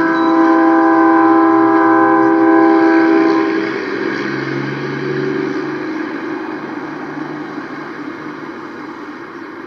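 Train horn blowing one long blast that cuts off about three and a half seconds in, followed by a steady rumbling noise that slowly fades.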